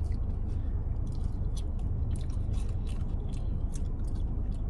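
Close-up chewing of food, with many short, irregular mouth clicks and smacks, over a steady low rumble.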